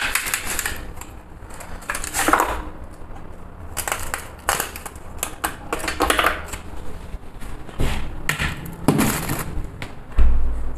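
Ice cubes and a plastic blender jar being handled: irregular clicks, cracks and clatter, with a dull thump near the end. The blender motor is not running.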